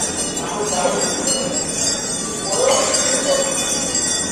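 Metallic jingling and clinking over the chatter of a crowd.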